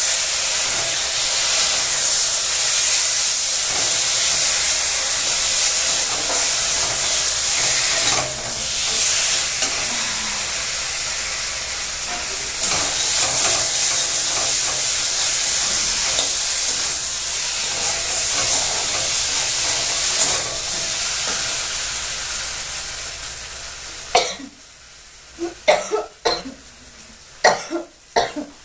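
Spiced food sizzling loudly in hot oil in a pan. About 24 seconds in the sizzle falls away suddenly, and a person coughs several times in short, sharp bursts.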